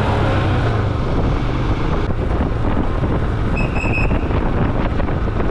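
Wind rushing over the microphone with steady road and engine noise from a moving motorcycle. Three short high beeps sound a little past the middle.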